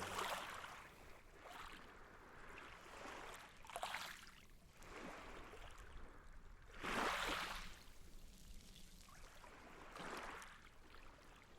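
Ocean waves washing in faintly, about four swells that rise and fall roughly every three seconds.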